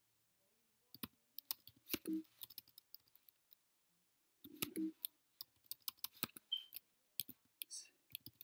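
Typing on a computer keyboard: irregular runs of key clicks, starting about a second in, with a short pause a little past the middle.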